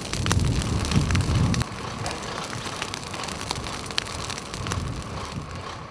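Dry grass burning as it is lit from a drip torch: a low rush of flame with many sharp crackles. A bit under two seconds in, this drops suddenly to a quieter, steady noise that still has scattered clicks.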